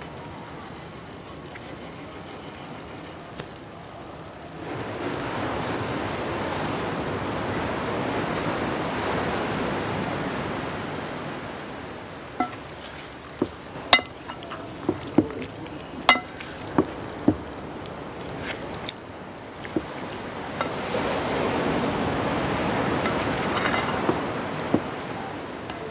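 Chicken and mushrooms sizzling in a hot pan as they are stirred. The sizzle swells up twice, and in between comes a run of sharp taps of the wooden spatula against the pan.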